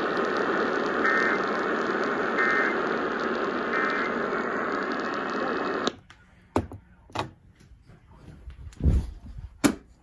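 Steady radio static hiss with three short, faint data-burst chirps about 1.4 seconds apart, the pattern of an Emergency Alert System end-of-message (NNNN) signal. About six seconds in the hiss cuts off suddenly, and a few scattered clicks and thumps follow.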